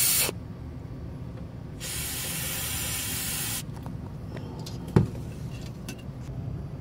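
Aerosol can of parts cleaner spraying in two bursts, a short one at the start and a longer one of about two seconds in the middle, washing soot out of the exhaust port of a Volvo D13's 7th injector (the DPF regen fuel doser). A single sharp knock comes about five seconds in.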